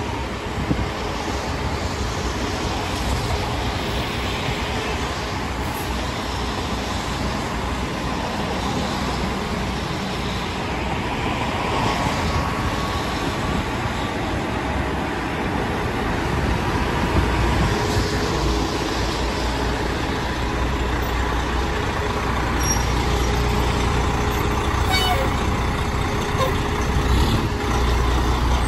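Fire ladder truck's diesel engine running as the rig pulls out of the station bay, a steady low rumble that grows louder in the second half.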